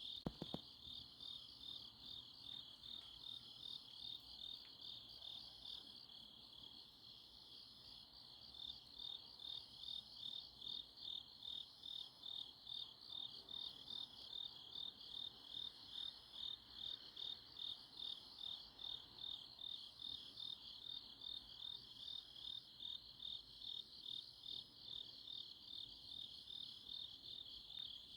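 Crickets chirping in a steady high-pitched chorus, pulsing about twice a second. Two short clicks at the very start.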